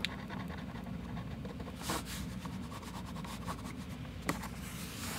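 A china marker scratching briefly on drawing paper a couple of times, with a sharp tap about four seconds in, over a steady low hum.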